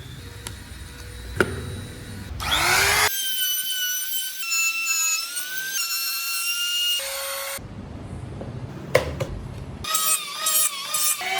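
Woodworking power tools cutting into wood: a rough grinding noise with a few sharp knocks, then a high, steady whine that shifts pitch in steps, broken by abrupt cuts between shots.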